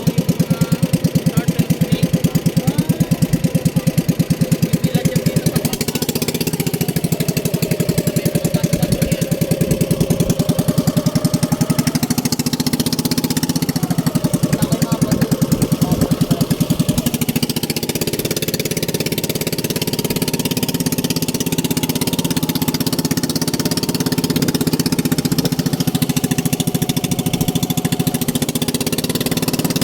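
Small engine running steadily with a fast, even pulse, its sound shifting slightly about two-thirds of the way through.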